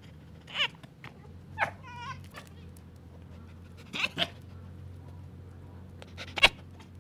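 Red fox giving a series of short yelping calls, about five, one with a wavering pitch about two seconds in and the loudest near the end.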